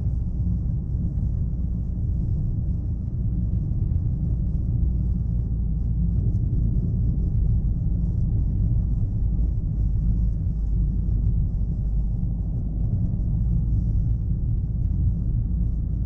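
Chevrolet Aveo on the move, heard from the driver's seat: a steady low rumble of engine and road noise with no change in pace.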